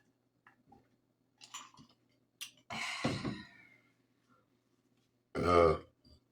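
A woman burps after a drink: a loud, pitched belch about five seconds in. Before it come a few small mouth clicks and a breathy exhale about three seconds in.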